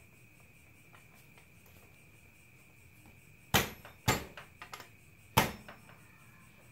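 Three sharp metallic clicks from handling a motorcycle's loose drive chain and rear-axle hardware, the first two about half a second apart and the third just over a second later, with a few fainter clicks between them. A faint steady high tone runs underneath.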